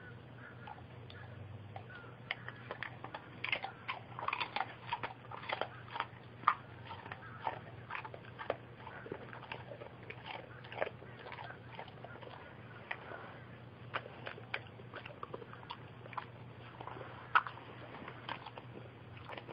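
An old black Labrador chewing a hand-fed treat: irregular crisp crunches, starting about two seconds in and going on until near the end. A faint steady low hum lies underneath.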